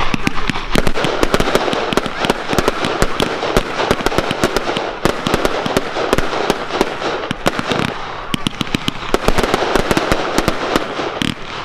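Fireworks display going off in a dense, continuous barrage: many sharp bangs a second over steady crackling.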